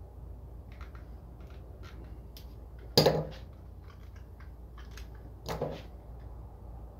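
Small clicks and scrapes of a tool working at the glued seam of a Bose cube speaker's plastic housing as it is pried apart, with a sharp knock about three seconds in and a lighter one a couple of seconds later.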